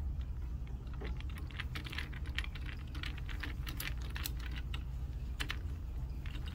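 Small, irregular clicks and taps of a hand screwdriver turning a screw into a mobility scooter's plastic handlebar console, with fingers handling the plastic parts, over a low steady hum.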